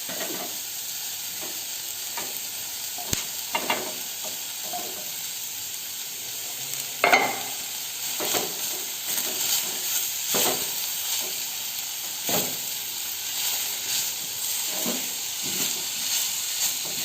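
Sliced onion, carrot and freshly added cabbage sizzling in oil in a pan while being stirred with a spatula, with irregular scrapes and knocks against the pan and a louder clatter about seven seconds in.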